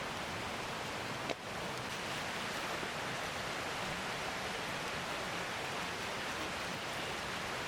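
Steady rushing of a flowing stream, an even hiss of water, with one brief click about a second in.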